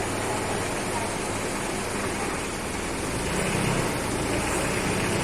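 An engine running steadily under a broad, even rushing noise.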